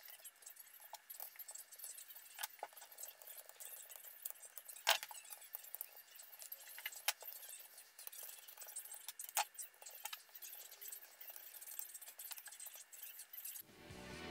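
Small metal clicks and clinks of a screwdriver driving screws into an electric motor's end bell, with a few sharper taps among them. Music comes in near the end.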